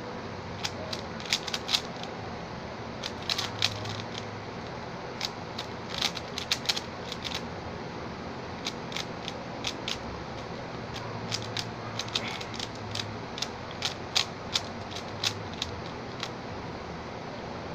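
A stickerless Xin Lexin 3x3 speedcube being turned fast by hand: quick runs of plastic clicks and clacks from the layer turns, broken by short pauses, over a steady background hiss.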